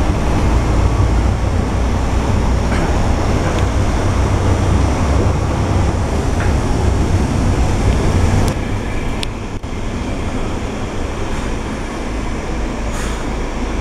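Volvo B12M city bus heard from inside the passenger cabin: its 12-litre six-cylinder diesel and road noise make a steady low rumble. The rumble eases about two-thirds of the way through as the bus slows, with a couple of sharp clicks at that point.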